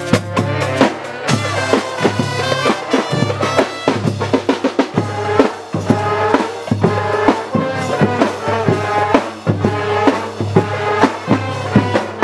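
Street brass band playing: trombones and saxophone carrying a tune over a steady drum beat.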